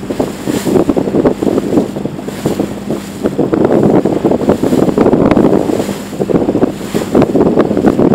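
Heavy wind buffeting the microphone as a small motorboat runs through choppy water, with a faint steady engine hum underneath.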